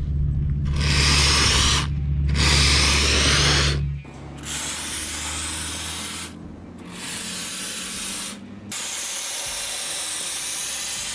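Two-part polyurethane spray foam hissing out of a hose-fed foam gun's conical nozzle in about five short bursts of one to two seconds each, with brief pauses between them. A steady low hum runs underneath for the first few seconds, then stops.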